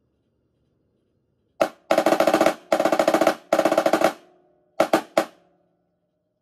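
Marching snare drum played with sticks: after a second and a half of quiet, a single stroke, then three fast runs of rolled strokes, then three sharp accented hits, the drum ringing briefly after the last.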